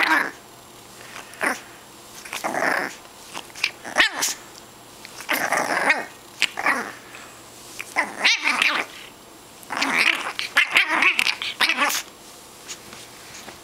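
Boston terrier puppy growling in play, in short rough gremlin-like bouts with pauses between them, stopping about twelve seconds in.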